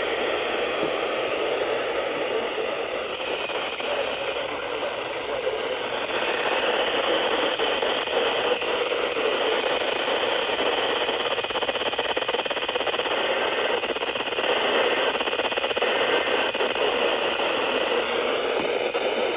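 Steady radio static: the even hiss of a weather radio receiver picking up no clear signal.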